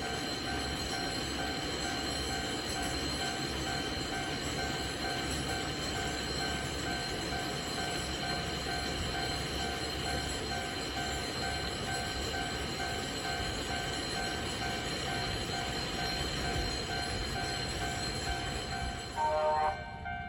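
Japanese level-crossing warning bell ringing on the Kintetsu Ikoma Cable Line funicular, its steady tones held over the running noise of the cable car. A brief, louder sound comes in about a second before the end.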